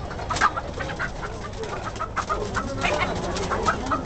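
Caged market birds calling, pigeons and clucking chickens, over a scatter of short sharp knocks and rustles as the pigeons are handled.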